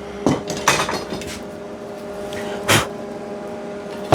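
Sharp metal clanks and knocks from steel parts and a clamp being handled: a quick cluster in the first second and a half, one loud knock near the end, and a louder one at the very end, over a steady low hum.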